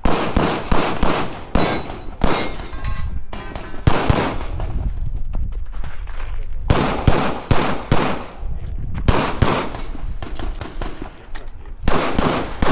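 9mm CZ Shadow 2 pistol shots fired in quick strings of two to four, with pauses of about a second or more between strings, each shot sharp and followed by a short echo.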